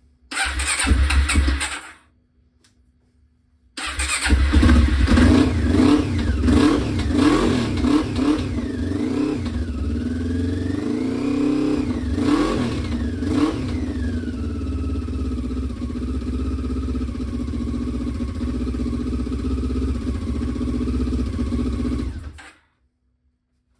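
Honda CB500 motorcycle engine, first start after more than six years standing: a short burst of cranking and firing, a pause, then it catches and runs, revved up and down a few times before settling to a steady idle. It stops abruptly near the end.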